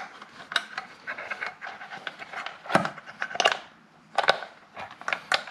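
Foam air filter being worked onto its plastic cage by hand: irregular rubbing and scuffing of foam against plastic, with sharp plastic clicks.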